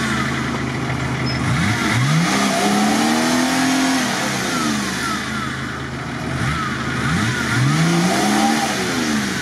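Engine of a UAZ-469 off-roader stuck in deep mud, revved up and falling back twice as the driver tries to drive it out.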